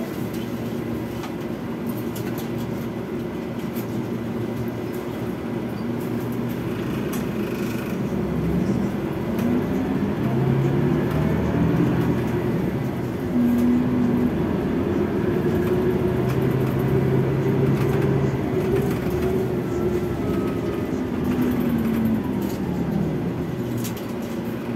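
Scania DC13 straight-six diesel engine of a Scania K360IB coach, running steadily at first, then pulling harder from about eight seconds in, its pitch climbing in steps as the Opticruise automated gearbox shifts, and falling away over the last few seconds.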